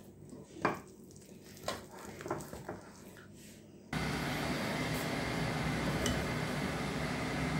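Wooden chopsticks stirring thick bread batter in a glass mixing bowl, with soft squelching and a few sharp clicks against the glass. About four seconds in, a steady hiss starts abruptly and continues.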